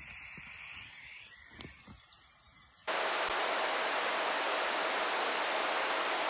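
Yaesu transceiver tuned to 27.900 MHz FM giving out receiver static: a loud, steady hiss with a faint steady whistle in it, starting abruptly about three seconds in. Before it, only faint outdoor quiet.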